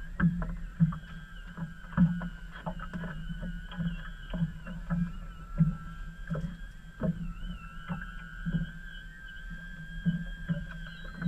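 Small waves slapping against the hull of a small fishing boat, a low knock about every half second with an occasional sharper click. A faint wavering high whistle runs underneath.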